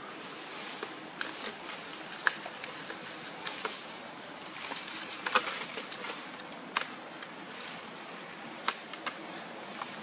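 Steady outdoor hiss with scattered sharp crackles and taps, the loudest a little over two seconds in and about halfway through, as long-tailed macaques move about and handle things on dry leaves and stone.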